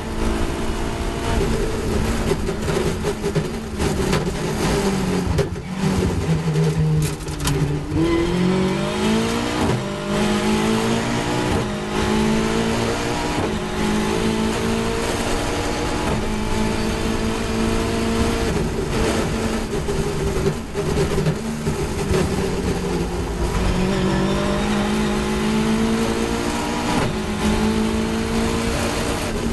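Caterham 420R's 2.0-litre four-cylinder Duratec engine heard from the open cockpit at race pace. Its note falls as the car slows for a corner, then climbs again in steps through the upshifts; this happens twice, over a constant rush of wind and road noise.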